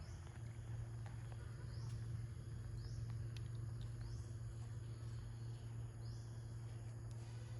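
Outdoor ambience: a steady low hum under a faint hiss, with four short, rising high-pitched chirps spread through it.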